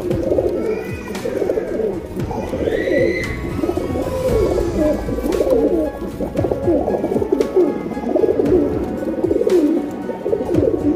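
Several domestic pigeons cooing, their calls overlapping continuously, with a few light clicks.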